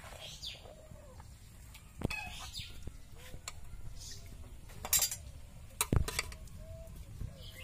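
A metal ladle clinking against the rim of a metal cooking pot while serving fish curry, a few sharp knocks, the loudest about five and six seconds in. Chickens cluck faintly in the background.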